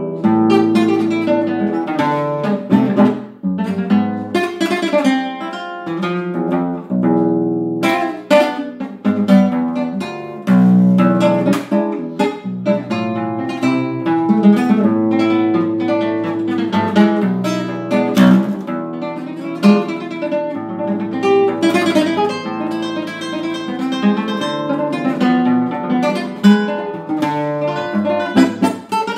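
Solo nylon-string classical guitar playing a tango, fingerpicked melody and bass notes with chords struck now and then.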